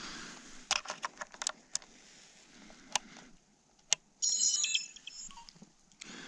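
Plastic clicks of a trail camera's case being unlatched and opened, a couple of single clicks, then a short electronic beep of several stepped tones from the trail camera as its keypad is pressed, about four seconds in.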